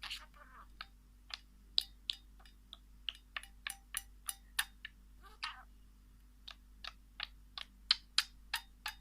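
A bird giving short, sharp ticking calls, irregular and several a second, with one longer, rougher call about five and a half seconds in.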